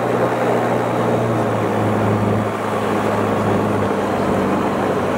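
Piper PiperSport light aircraft's Rotax 912 flat-four engine and propeller running steadily at low taxi power, heard from inside the cockpit. The engine note shifts slightly about two seconds in and again near four seconds.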